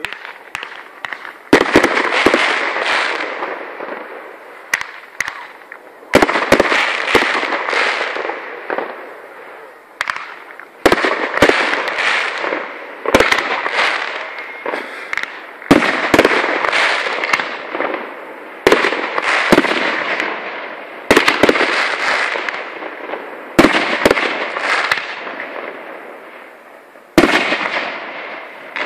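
Aerial fireworks bursting overhead: about nine loud bangs a few seconds apart. Each bang is followed by a crackling hiss that fades over two or three seconds.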